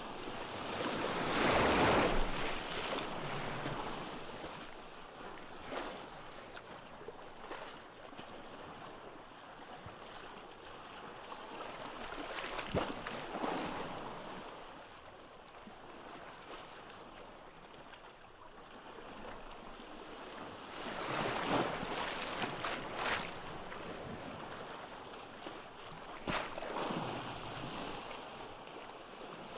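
Ocean surf on a beach: waves breaking and washing back, swelling to a loud surge every several seconds, about four times.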